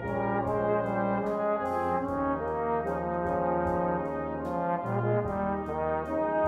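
Brass ensemble playing held chords that move every second or so over low bass notes, with a light regular tick about twice a second.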